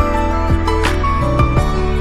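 Instrumental background music with sustained notes and a regular beat.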